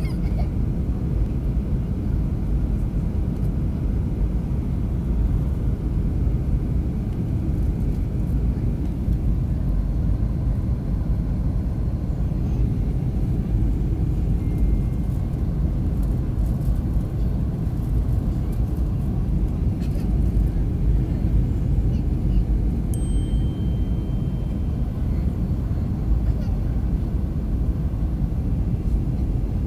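Steady low rumble of cabin noise inside a Boeing 737-800 airliner on approach to land: airflow over the fuselage and the CFM56-7B engines running.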